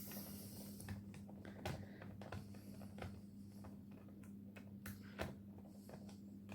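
Small screwdriver turning the screws of a laptop's bottom panel: faint irregular clicks and scrapes of metal on the screws and plastic case, over a low steady hum.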